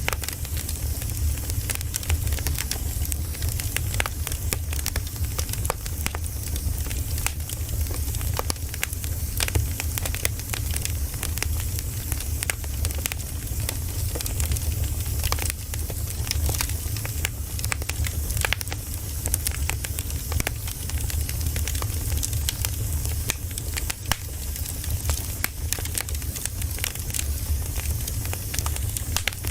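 Campfire burning: a dense, irregular run of small crackles and pops from the burning wood over a steady low rumble of the flames.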